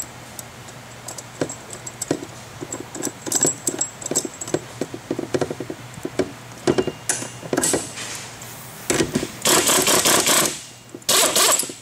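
Light metal clicks and clinks as a clutch hub puller is set onto a Sanden compressor's clutch hub, then an air tool runs in two bursts, a longer one of about a second and a half and a short one near the end, driving the puller's center bolt to lift the drive hub.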